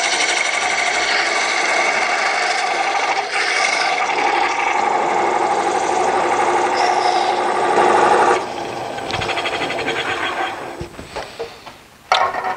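Thin parting tool cutting into a spinning big leaf maple blank on a wood lathe: a steady scraping cut that stops about eight seconds in. A quieter, rougher noise follows and fades, then a short knock near the end.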